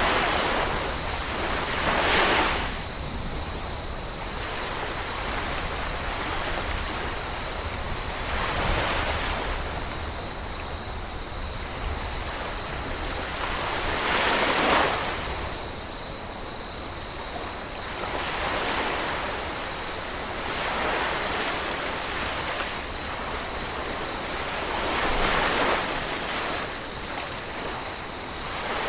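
Ocean waves breaking and washing up a beach, the surf swelling and easing every four to six seconds over a steady wash.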